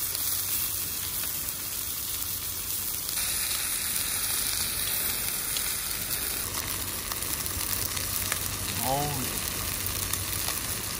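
Steak sizzling steadily in a hot pan, with small pops and crackles.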